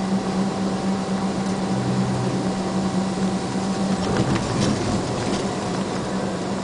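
Steady drone of a vehicle's engine and tyre noise, heard from inside the cab while driving on a wet road, with a faint steady whine above it and a few light ticks about four seconds in.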